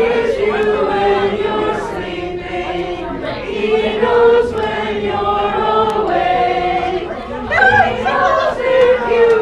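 A group of people singing together, with long held notes.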